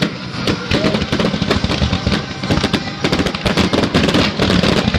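Fireworks going off: a rapid, dense string of sharp pops and bangs over a low rumble, growing thicker after about three seconds.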